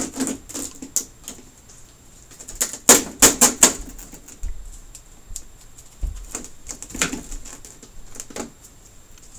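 Large thin plastic diffuser and optical film sheets from an LED TV backlight crackling and crinkling as they are flexed and lifted by hand, in irregular snaps with the loudest flurry about three seconds in.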